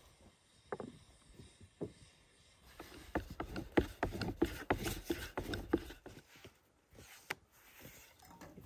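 Long thin wooden rolling pin working dough on a wooden board: a few separate knocks, then a quick run of wooden knocks and rattles for about three seconds in the middle as the pin is rolled back and forth, and one last knock near the end.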